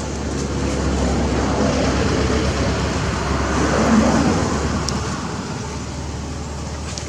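Road traffic noise: a vehicle passing by, its noise swelling to a peak about four seconds in and then fading away over a steady low rumble.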